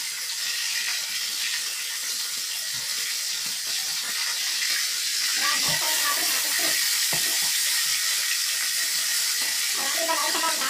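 Whole fish sizzling as it fries in hot oil in a wok: a steady hiss, with a few knocks and scrapes of a spatula against the pan around the middle.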